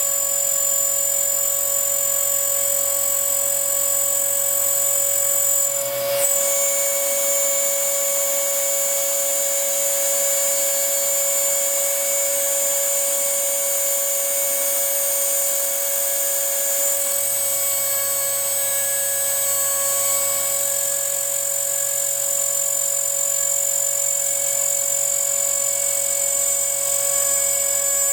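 Homemade CNC router milling a printed circuit board: the spindle runs at a steady whine with a carbide bit cutting the copper-clad board. There is a brief click about six seconds in.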